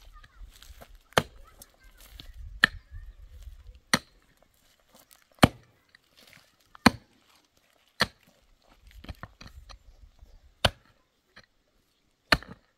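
A mattock striking hard, stony soil in about eight sharp, evenly spaced blows, roughly one every second and a half, with one longer pause late on. Small stones and dirt click faintly between strikes.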